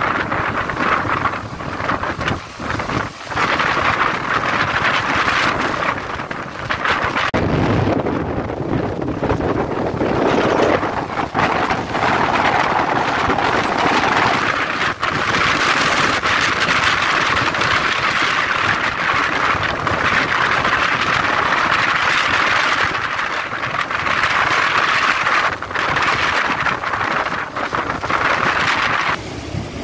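Tropical-storm wind and heavy driving rain: a loud, continuous rushing that surges and eases with the gusts, with wind buffeting the microphone.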